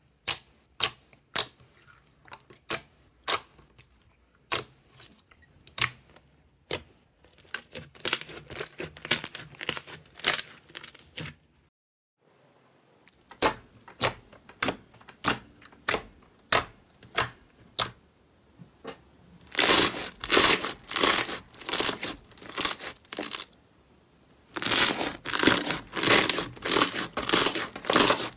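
Slime being handled, with sharp separate pops roughly once a second, and in between and near the end runs of dense crackling as it is squeezed and stretched. Briefly silent about twelve seconds in.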